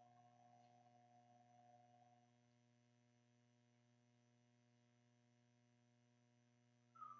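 Near silence: a faint steady electrical mains hum, with a faint held tone dying away in the first two seconds and a brief short chirp near the end.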